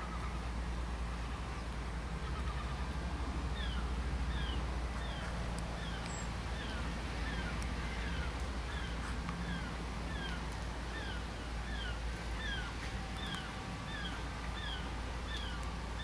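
Short, high calls that fall in pitch, repeated evenly about once every 0.7 s from a few seconds in, over a steady low rumble.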